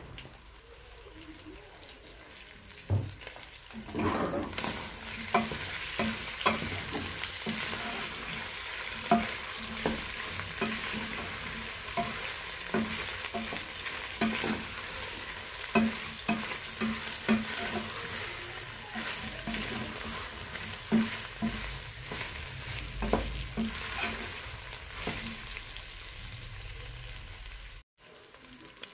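Beef cubes sizzling in oil in a stainless steel pot while a wooden spoon stirs them, knocking against the pot many times. The sizzling sets in about four seconds in and then keeps up steadily.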